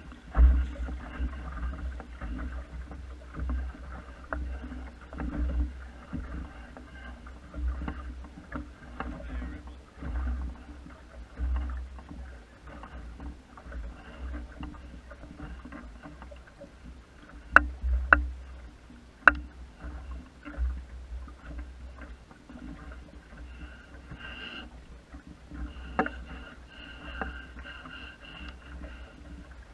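Water washing and lapping along the hull of a small wooden sailing dinghy under way, over a fluctuating low rumble of wind on the microphone. A few sharp clicks stand out a little past the middle.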